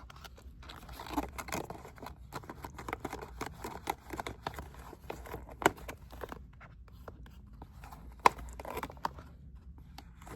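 A packet of lemon pepper tuna being torn open and handled: crinkling and rustling with scattered small clicks and taps, two sharper clicks just past the middle and late on.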